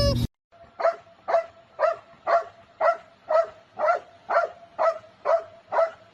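A dog giving short, evenly spaced yips or barks, about two a second, each call the same pitch.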